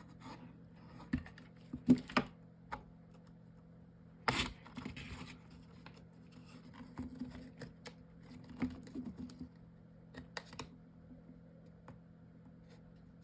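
Scattered light clicks, taps and scratches of chipboard and paper pieces being handled and pressed together with a hot glue gun, with a sharper knock about two seconds in and another just after four seconds. A faint steady hum runs underneath.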